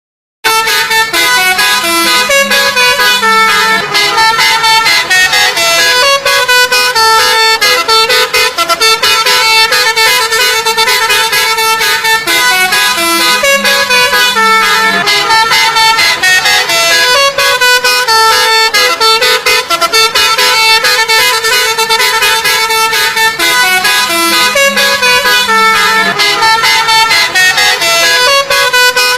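Telolet basuri bus horn playing a loud multi-note melody, the tune repeating about every eleven seconds. It starts right after a moment of silence at the very beginning.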